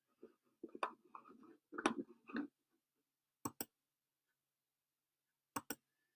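A few soft muffled noises, then two quick pairs of sharp clicks about two seconds apart.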